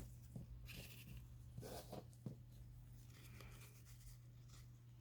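Faint paper handling: a few soft rustles of paper being moved and laid on a page, with several light taps, over a steady low hum.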